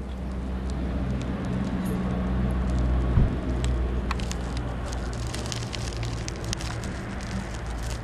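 Container freight train rolling past on the near track: a steady rumble of wheels on rail with a low hum, a thump about three seconds in, and crackling clicks through the second half, while an ÖBB Taurus electric locomotive approaches head-on.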